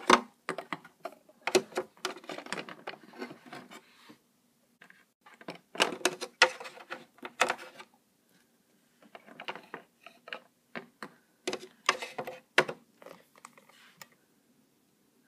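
Irregular clicks, taps and knocks of hard plastic Littlest Pet Shop figurines being handled and bumped against a plastic playset, in scattered clusters with brief pauses between them.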